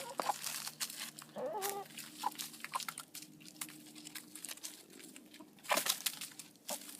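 Backyard hens clucking a couple of times, with scattered scratching and clicking sounds over a low steady hum, and a brief loud rustle near the end.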